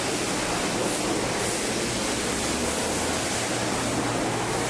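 Steady rushing hiss of water spraying, as from a wash hose or pressure-washer jet, with a low hum underneath.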